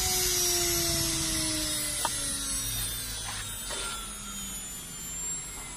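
CNC router spindle running with a whine that slowly falls in pitch over the first few seconds, along with a few light clicks.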